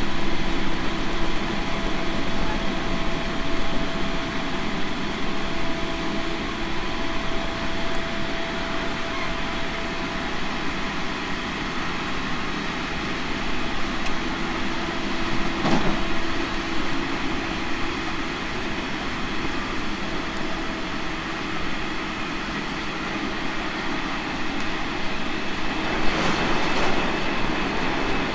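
JR Central 313 series 5000-subseries electric train running at speed, heard from on board: a steady rolling rumble with a hum that fades out for a few seconds and comes back. There is a single knock about halfway through, and the noise grows louder near the end.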